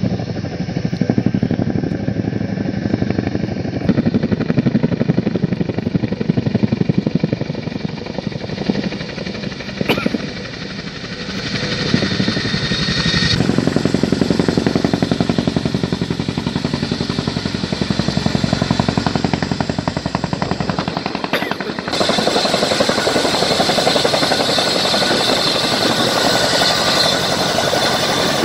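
Boeing CH-47 Chinook tandem-rotor helicopter flying low, its rotor blades beating in a fast, even thudding pulse with the turbine noise beneath. The sound shifts abruptly twice, about halfway and three quarters of the way through.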